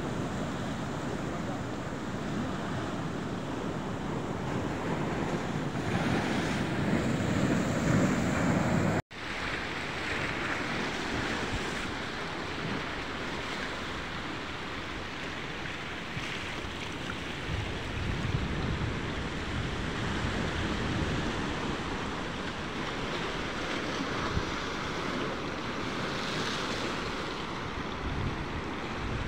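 Sea waves washing against a rocky shore, with wind buffeting the microphone. The sound breaks off sharply for a moment about nine seconds in, then carries on at a similar level.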